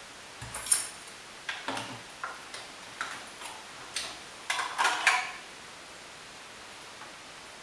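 Metal utensil clinking and scraping against a bowl of beef stew: about a dozen light, irregular taps and scrapes over roughly five seconds.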